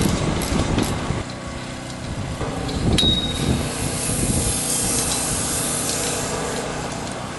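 Handling noise of a metal clamp being worked onto steel greenhouse hoop tubing, with one sharp metallic click and a short ring about three seconds in.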